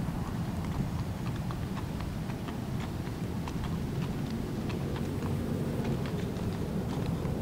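Horse's hooves clip-clopping on asphalt, several light clicks a second, over a low steady rumble.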